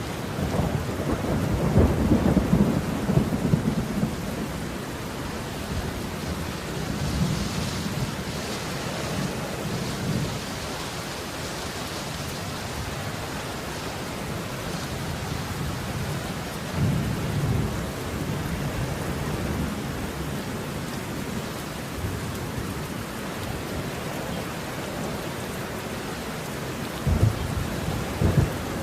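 Heavy rain falling steadily, with several low rumbles of thunder. The strongest rumble comes near the start, and two sharper ones come near the end.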